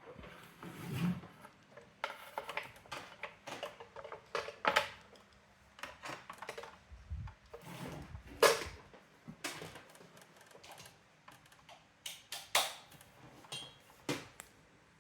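Irregular clicks, taps and knocks of the Brother AX-425 typewriter's plastic and metal parts being handled and worked on during disassembly, with one sharper knock a little past halfway.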